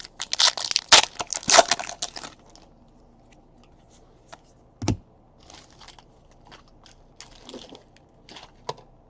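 Foil trading-card pack wrapper crinkling as it is torn open, followed by a sharp click and light rustling of cards being handled.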